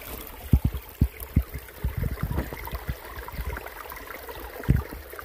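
Creek water gurgling as it runs over and through a small sluice box, with several low thumps scattered through.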